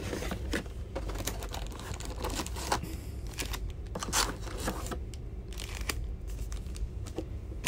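A cardboard trading-card box being opened and its foil-wrapped card packs lifted out and set down: scattered rustling, crinkling and light clicks of card stock and wrappers.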